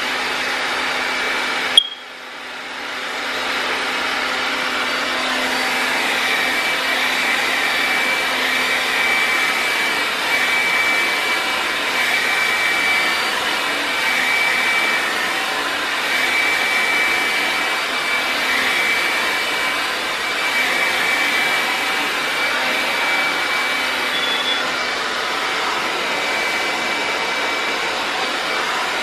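Handheld hair dryer blowing steadily, a loud rush of air with a high whine, used to blow out natural hair. About two seconds in there is a sharp click, and the sound dips and then builds back up over a couple of seconds.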